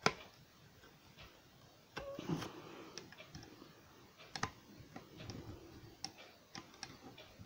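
Tip of a kitchen knife, used as a makeshift screwdriver, clicking and scraping in the head of a small screw that will not loosen. There is a sharp click right at the start and another about four and a half seconds in, with lighter ticks between.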